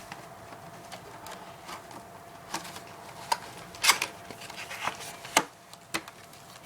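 Pokémon card collection box being opened and handled by hand: scattered clicks, taps and light rustles of the packaging, with the sharpest clicks about four and five and a half seconds in.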